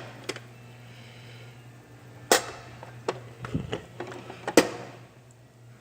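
Metal tool chest drawers and the tools in them clacking and clattering as they are handled, with two sharp metallic knocks, one about two seconds in and one near the end, and smaller clicks between them. A steady low hum runs underneath.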